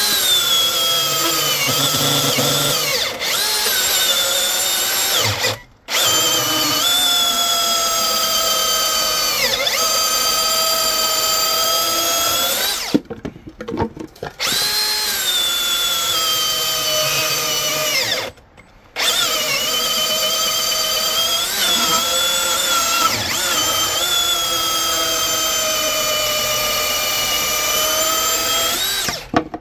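Milwaukee M18 dual-battery electric chainsaw running at full power with an Oregon LGX .325 full-chisel chain, cutting hardwood. Its high motor whine sags in pitch as the chain bites and picks back up. It stops briefly three times and cuts off near the end.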